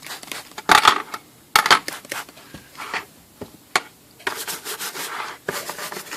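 Plastic typewriter case covers being scrubbed and handled during washing: irregular rubbing and scratching noises in uneven bursts, with a few sharp knocks.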